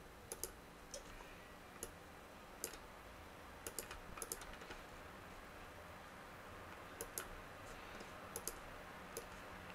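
Computer mouse clicking at irregular intervals, some clicks coming in quick pairs like double-clicks, over a faint steady room hiss.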